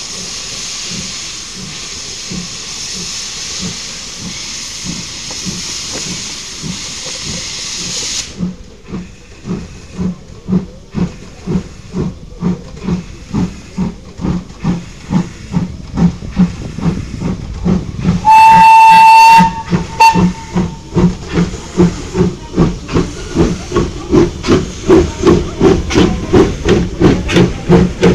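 Steam locomotive pulling away: a steady hiss of escaping steam cuts off about eight seconds in, then the exhaust chuffs begin slowly and quicken to about three a second. About two-thirds of the way through comes a long, loud whistle blast, followed by a short second toot.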